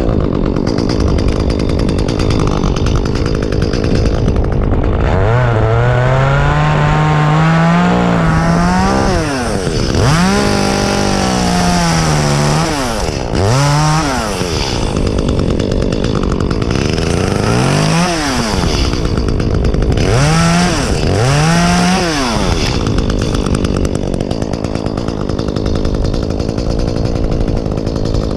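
Echo two-stroke chainsaw running loud while cutting oak. The engine note rises and falls several times as it is throttled up and pulled down in the cut.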